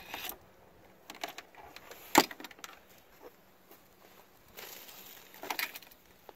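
Handling noises from hand wiring work on an ATV: scattered small clicks and rustles of wire and tools against the plastic body, with one sharp click about two seconds in that is the loudest sound.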